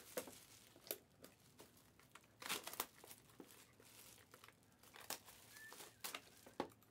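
Faint plastic shrink-wrap crinkling and tearing in short, scattered rustles as a sealed box of trading cards is unwrapped.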